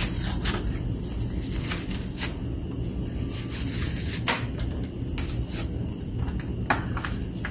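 Paper tissue rustling and scattered light clicks as spilled ink is wiped from around the ink-tank caps of an Epson ET-15000 EcoTank printer and a tank cap is handled, over a steady low hum.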